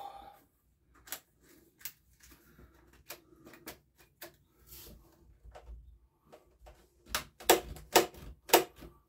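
Hands and tools working on small trimmer parts: scattered light clicks and knocks, then, about seven seconds in, a quick run of louder sharp taps about three a second.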